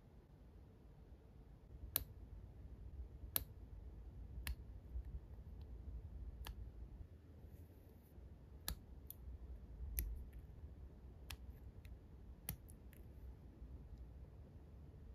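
Faint, irregular sharp clicks, about ten spaced a second or two apart, from a 1/12-scale model motorcycle wheel being turned and handled between the fingers: small taps of plastic rim and fine wire spokes against fingernails and fingertips.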